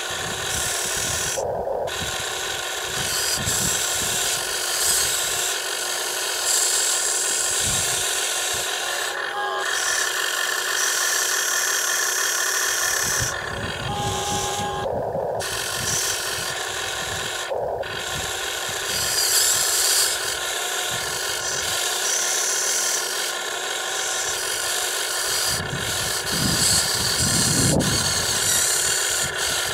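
Radio-controlled Huina wheel excavator's small electric motors and gearboxes whining as the boom, arm and bucket move. The whine cuts out briefly about five times as the controls change.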